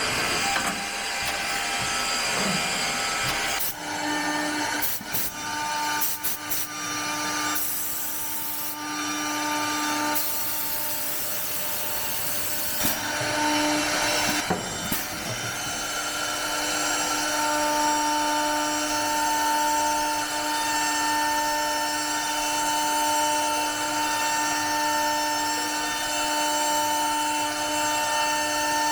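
CNC six-sided panel drilling machine with twin high-speed drill heads at work. A steady spindle whine cuts in and out several times in the first half and then holds, with a few bursts of cutting noise as the bits drill into the board.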